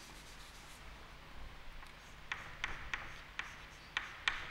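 Chalk writing on a chalkboard: quiet at first, then from about halfway a string of short, sharp chalk taps and scrapes as letters are stroked on.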